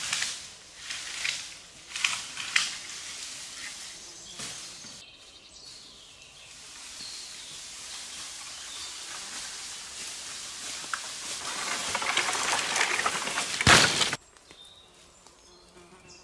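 Footsteps crunching through dry leaf litter, then an armful of dry dead branches rustling and scraping as it is gathered and carried over the forest floor. The rustling grows louder, peaks in a loud crackle and cuts off suddenly.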